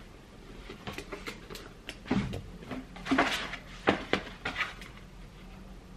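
Light handling noises: a scatter of soft knocks, taps and rustles as a flat pouch and an orange cardboard box are moved about, the strongest about two and three seconds in.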